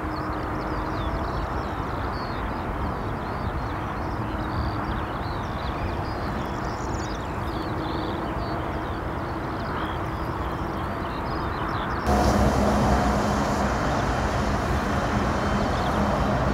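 Boeing 777 freighter's GE90 jet engines running at taxi power, a steady noise with a low hum. About twelve seconds in it turns suddenly louder and brighter, with a clearer steady engine whine.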